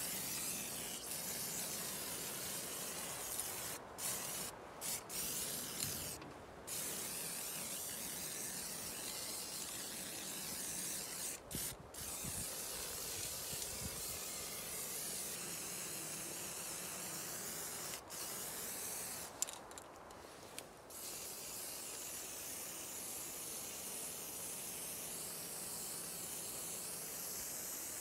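Aerosol spray-paint can spraying black paint in long steady hisses, the spray released for a few short breaks and one longer pause about two-thirds of the way through.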